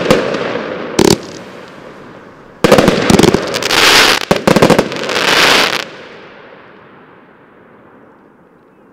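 Broekhoff Sylvester Mainframe 138-shot fireworks compound firing: a few single bangs, then about three seconds in a dense run of reports and crackling lasting some three seconds as the last volley goes off, followed by a long fading echo.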